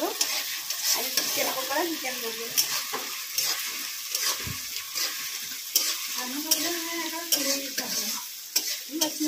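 Masala frying in hot oil in a metal kadai, sizzling steadily while a metal ladle stirs it and scrapes and clicks against the pan.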